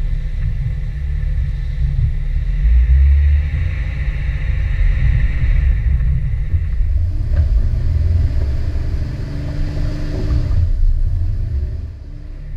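Low, dense rumble of an off-road vehicle crawling along a muddy trail, with a higher steady tone joining in for a few seconds past the middle. The rumble drops away near the end.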